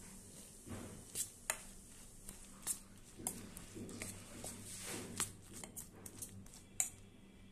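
Thick, wet batter of ground masoor dal (red lentil) paste and chopped onions being mixed in a bowl: irregular soft squelches with a few sharp clicks scattered through, over a steady low hum.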